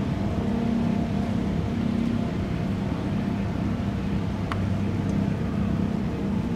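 The Mein Schiff 1 cruise ship's engines humming steadily, a low drone made of several held tones. A brief high chirp sounds about four and a half seconds in.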